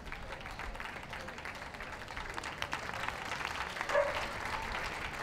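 Ringside crowd applauding: many hands clapping steadily, with a brief louder tone standing out about four seconds in.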